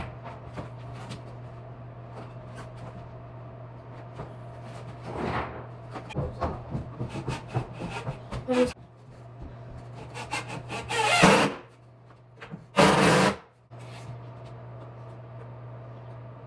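Wooden boards being handled during renovation work: scattered knocks and clicks, then two short, loud rasping scrapes about eleven and thirteen seconds in, over a steady low hum.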